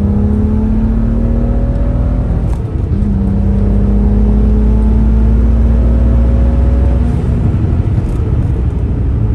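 BMW N55 turbocharged straight-six accelerating hard, its note rising steadily. About two and a half seconds in it breaks and comes back at a lower pitch, as on an upshift, then climbs again until the throttle is lifted about seven seconds in.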